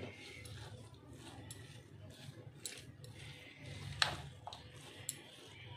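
A metal spoon mixing pickle in a bowl, giving a few light clicks and clinks as it knocks against the bowl, the sharpest about four seconds in.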